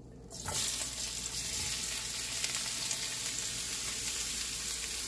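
Chopped bell peppers, onion, scallion and parsley hitting hot oil in a stainless steel frying pan, starting to sizzle suddenly about half a second in and then sizzling steadily.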